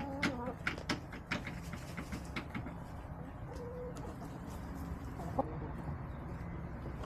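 Backyard hens clucking softly: a short call right at the start and a brief low note near the middle, over quick light ticks that thin out after about two seconds and a low steady hum.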